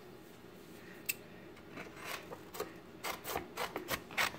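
Weeded vinyl decal sheet on its paper backing being handled and rubbed: a single click about a second in, then a run of irregular short rubbing and scraping strokes from about two seconds on.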